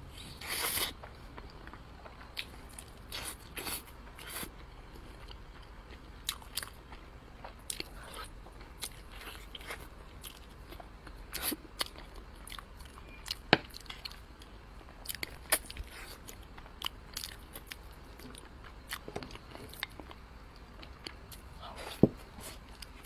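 Close-miked eating: a person biting and chewing braised pork, with scattered sharp wet clicks from the mouth. A short louder burst comes just under a second in, and the sharpest clicks come about halfway through and near the end.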